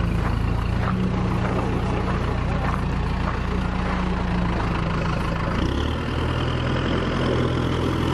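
Kubota M8540 farm tractor's diesel engine running steadily at idle, its low note shifting to a different, deeper pitch about three-quarters of the way through.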